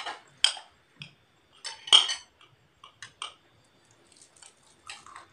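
Metal spoons clinking and scraping on ceramic plates while eating: a scatter of short sharp clinks, the loudest about two seconds in.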